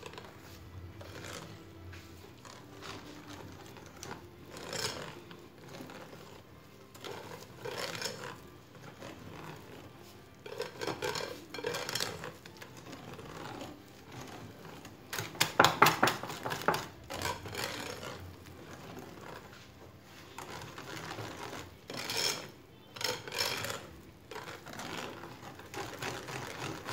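Wire whisk beating a thick flour batter in a glass bowl, its wires tapping and scraping against the glass in irregular runs of quick strokes. The fastest, loudest run comes about halfway through.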